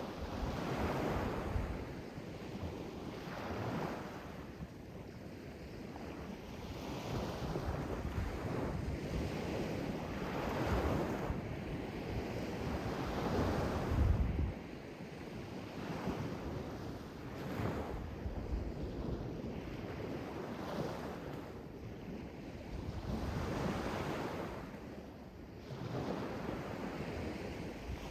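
Sea waves washing in, the surf swelling and fading every few seconds, with wind buffeting the microphone, loudest in a short low thump about halfway through.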